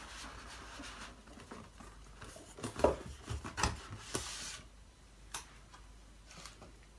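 A cardboard box being handled: a paper sleeve slides and rubs against it, with a sliding rush near the middle. A few light knocks come as the box is set on a wooden desk, the sharpest about three seconds in.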